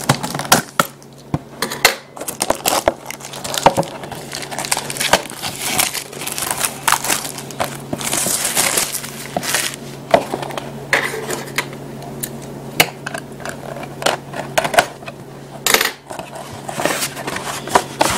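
Plastic shrink wrap and cardboard packaging being torn open and crinkled by hand as a sealed trading-card hobby box is unwrapped: irregular rips, crackles and taps, with a thicker stretch of crinkling about halfway through, over a faint steady low hum.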